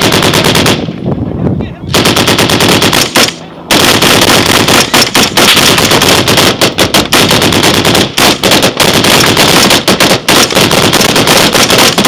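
Machine gun firing at close range in rapid automatic bursts: a short burst at the start, another about two seconds in, then nearly continuous fire with brief breaks from about four seconds on.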